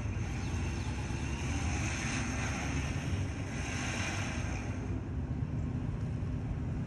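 Ford pickup being pulled out by its Badland 12,000 lb electric winch under heavy load, with a steady low rumble of engine and winch. A higher hiss on top eases off about five seconds in.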